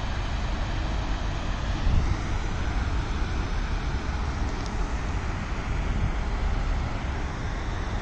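Steady outdoor rushing noise with a fluctuating low rumble.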